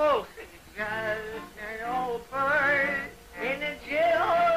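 A cartoon rooster's voice singing in short phrases with wavering pitch over music, opening with a quick downward slide. The bottle in his hand points to a tipsy, drunken song.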